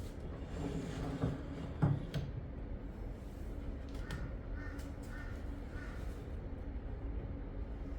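A crow cawing four times in quick succession, starting about four seconds in, over a steady low background hum. A couple of dull thumps come in the first two seconds.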